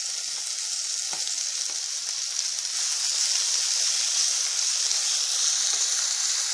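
Fresh chopped fenugreek (methi) leaves sizzling in hot oil in a kadai, stirred in with fried onions and curry leaves: a steady high hiss that grows a little louder about three seconds in.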